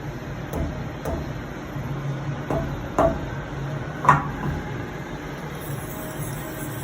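A few light knocks of a rubber mallet tapping a steel milling vise to square it on the table, the loudest two about three and four seconds in, over a steady low hum.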